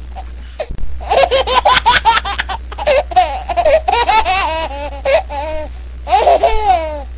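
High-pitched laughter in rapid, repeated bursts, rising and falling, with a steady low hum underneath.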